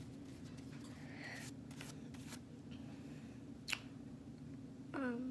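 Flat paintbrush stroking acrylic paint onto cardboard: soft, scratchy brush strokes over a steady low hum, with one sharp click about three and a half seconds in.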